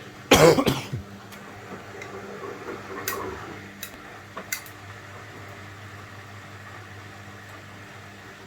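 Beko front-loading washing machine's motor turning the drum at low speed, a steady low hum with a few light clicks and knocks, as it tumbles the load to balance it before the final spin. A short, loud noise about half a second in.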